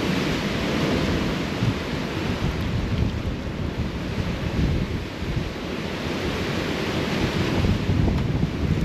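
Storm wind gusting hard, with heavy wind buffeting on the microphone; a continuous rushing noise that swells and eases.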